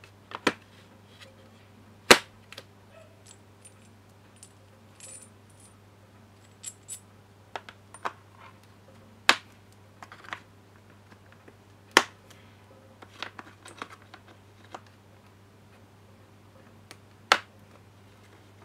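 Steel parts of an A/C compressor clutch tool kit (holding plate, bolts, adapters) clinking and knocking against each other and the plastic case as they are handled: scattered sharp clacks, the loudest four spaced a few seconds apart, with a few light metallic tinkles. A steady low hum runs underneath.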